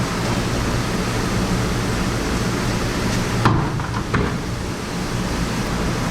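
Steady rushing noise with a low hum, as of running water or machinery in a restaurant dish area. Two sharp clanks come a little past the middle.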